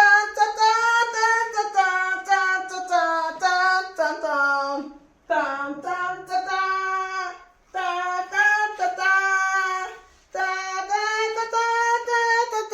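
A high voice singing a melody unaccompanied, in sustained, gliding notes, in about four phrases with short breaks between them.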